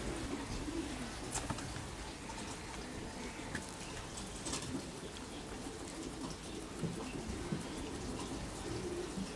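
A pigeon cooing in a steady, repeated low call, with a few faint clicks and taps scattered through.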